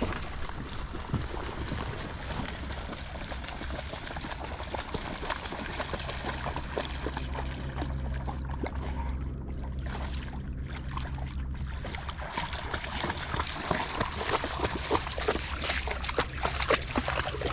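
A dog splashing through shallow flooded-field water on a retrieve, with many small splashes. The splashing grows louder and closer over the last few seconds as the dog reaches the boat with a duck.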